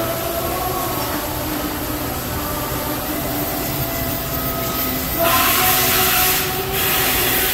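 Fanuc RoboDrill Alpha T10-C machining center running a pallet change: a steady machine hum with several thin servo whines. About five seconds in, as the pallet swings round, a loud rushing hiss comes in, breaks off briefly, and returns.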